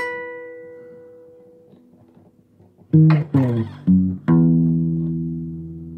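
Guitar played one note at a time, each left to ring and fade. A note slides up into a held tone at the start, then a few quick plucked notes come about three seconds in, followed by a low note about four seconds in that rings on.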